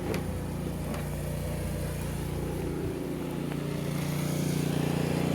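Snowblower engine running steadily, growing gradually louder toward the end.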